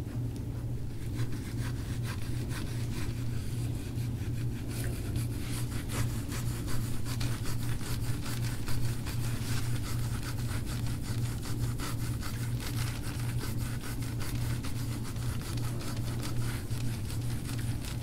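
Handheld scraping tool stroked quickly over oiled skin in instrument-assisted soft-tissue work on a man's back. It makes a scraping rub repeated several times a second over a steady low hum.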